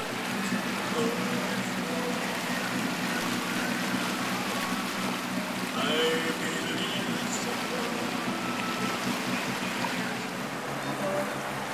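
Boat engine running steadily at low speed, with water washing along the hull. Brief voices about six seconds in.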